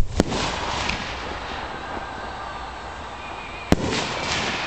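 4- to 6-inch display fireworks mortars firing from their tubes. A sharp bang comes right at the start with a second close behind it, then another bang comes near the end.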